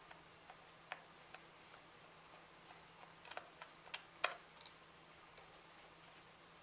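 Faint, irregular clicks and ticks of a screwdriver turning screws out of a plastic controller housing, with one sharper click about four seconds in.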